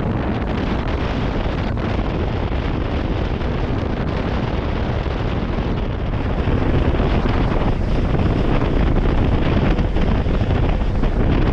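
G3 Sportsman 1810 aluminum bass boat underway at a steady cruise of about 18 mph, the run drowned in a steady wind rush over the microphone. The rush gets louder about six and a half seconds in.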